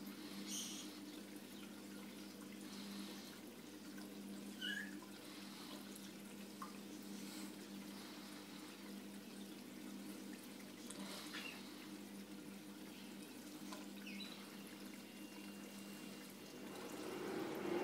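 Home aquarium running: a faint, steady trickle of circulating water over a low, steady hum from its pump, with a few small clicks.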